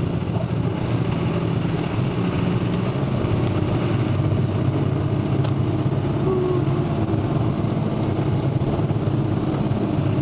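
Bus engine and road noise heard from inside the cabin while driving: a steady low drone with a few faint rattles.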